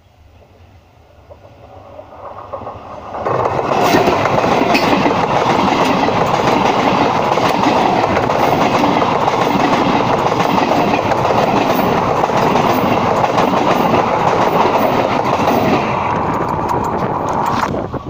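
Train approaching and then running directly over the microphone at rail level. A rising rumble jumps to a loud, steady clatter of wheels on the rail about three seconds in, with scattered sharp clicks, and eases slightly near the end.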